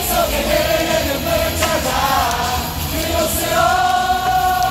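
Music with singing, with long held sung notes, and one sharp pop about a second and a half in.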